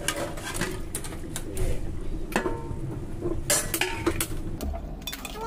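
Steel bowl and spoon clinking and scraping against a steel cooking pot as raw chicken pieces are tipped into the masala, with irregular sharp clatters every half-second to a second and one brief metallic ring about midway.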